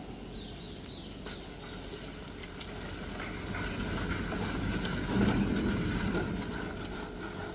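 Construction machinery running steadily, with irregular knocks and clatter, growing a little louder about five seconds in.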